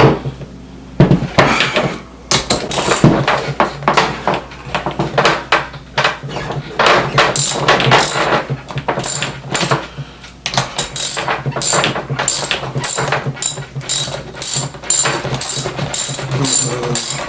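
Ratchet wrench clicking in quick runs as a roller skate wheel's axle nut is loosened to take the wheel off.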